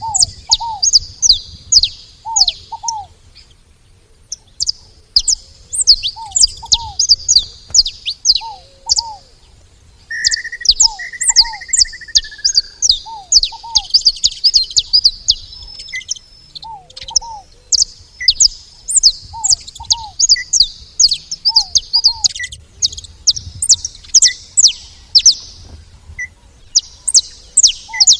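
Saffron finches chirping in a dense, rapid chatter of high, sharp notes, with a brief lull near the start. Another bird repeats a lower, paired call every second or two.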